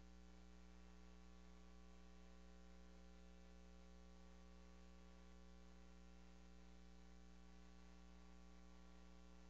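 Near silence with a steady electrical mains hum: a constant low buzz of evenly spaced tones, unchanging throughout.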